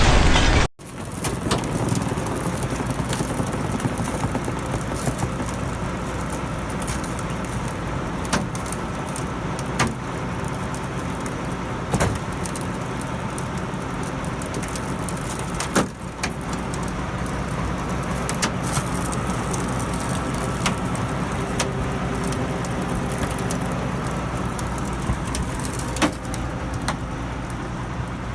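A steady low mechanical hum, like an engine or machine running, with a few sharp knocks scattered through it. A short loud burst of noise cuts off abruptly just under a second in.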